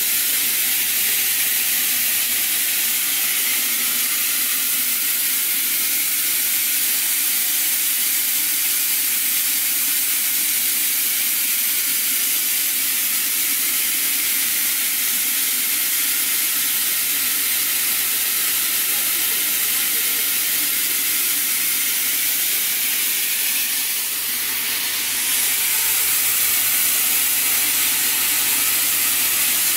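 FDY yarn spinning and drawing machine running: a steady loud hiss with a low hum underneath, dipping briefly about 24 seconds in.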